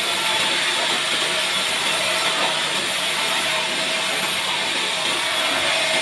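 Large vertical band saw running steadily as it rips through a thick, bark-covered log slab, giving an even, unbroken hiss.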